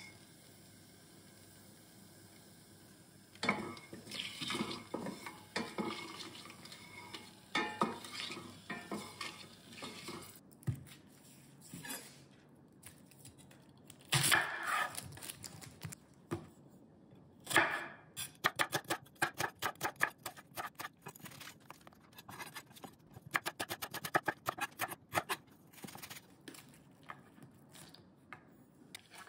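Knife slicing a red onion on a wooden chopping board: a fast, even run of sharp knife strikes, about five a second, in the second half. Before it come scattered knocks and clicks of handling, with a couple of louder knocks.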